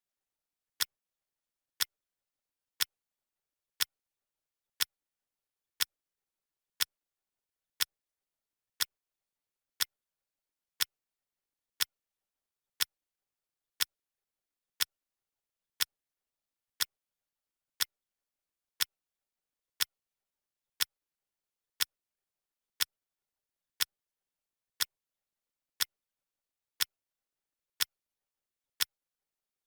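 Clock ticking sound effect, one sharp tick each second, steady and even.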